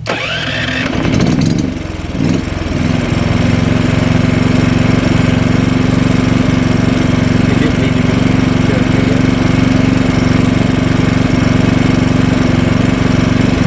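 Champion 5500 dual fuel inverter generator starting up: the engine catches and speeds up with a rising whine over the first couple of seconds, then settles into a steady, even run.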